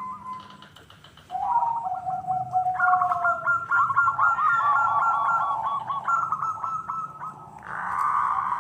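Several zebra doves (perkutut) cooing at once: overlapping runs of rapid, trilled coos in two or three pitches, starting strongly after a short lull about a second in.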